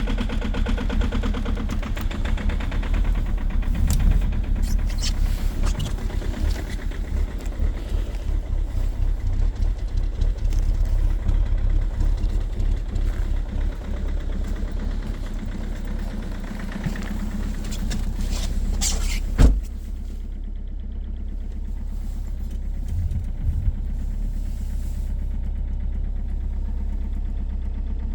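2.0 HDi four-cylinder diesel engine idling just after a cold start at −16 °C, with a very strong, rapid knocking. About two-thirds of the way through there is one sharp bang, after which the engine runs smoother with a duller, steadier sound.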